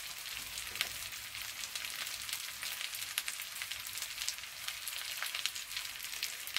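Potatoes, peppers and chorizo sizzling in a thin film of olive oil in a nonstick frying pan on low heat: a steady soft hiss with many small crackling pops.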